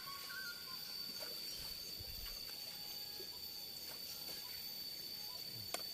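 Insects trilling steadily with one high, even tone, with faint ticks and one sharp click near the end.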